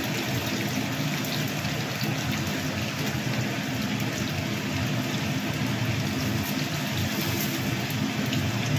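Hot oil sizzling steadily in an iron kadhai as potato cheese bites deep-fry.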